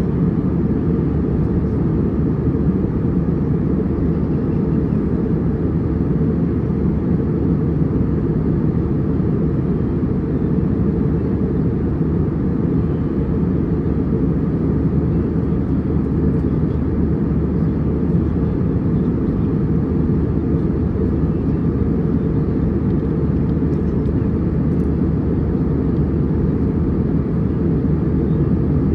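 Airliner cabin noise: the engines and the airflow past the fuselage, heard from inside the cabin as a steady low rumble.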